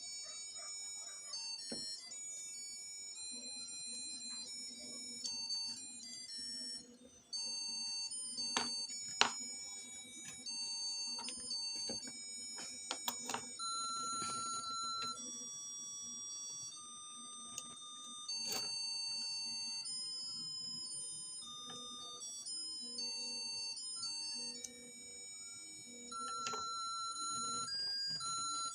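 A simple electronic melody of beep-like notes, like an alarm clock or ringtone tune, hopping from pitch to pitch, with a few sharp clicks along the way.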